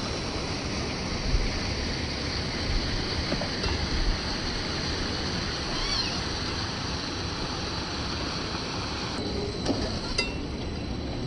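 Steady rushing of a small waterfall and stream. A few faint chirps come about halfway through, and a couple of light knocks near the end.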